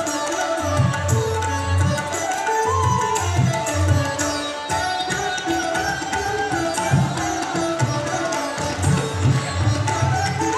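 Indian instrumental dance music: a repeating hand-drum beat under a gliding melody.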